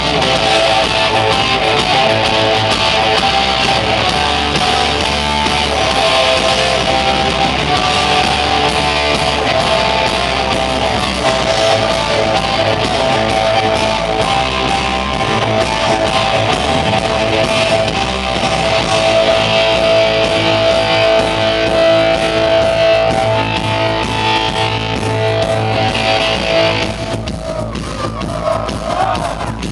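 Live rock band playing loud: electric guitars, bass guitar and drums. About three seconds before the end the full sound drops back and thins out.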